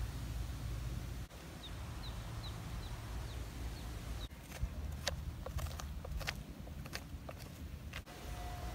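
A kitchen knife cutting into the hard rind of a whole pumpkin, a string of about ten sharp cracks and clicks in the second half, over a steady low rumble. A bird chirps a few short notes about two seconds in.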